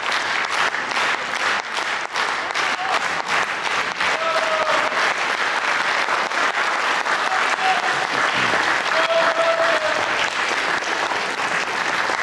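Concert audience applauding, a dense, steady clapping.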